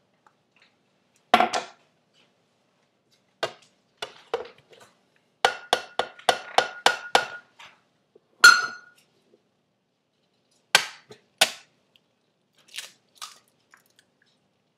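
Sharp clicks and clinks of a glass measuring cup and eggs against a plastic blender jar and countertop while ingredients are added. There is a quick run of about eight taps in the middle, a louder clink with a short ring a little later, and a few more knocks near the end.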